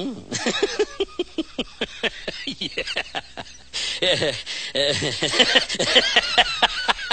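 Laughter: a rapid run of short ha-ha pulses, each falling in pitch, turning louder and breathier with a hissing wheeze about four seconds in.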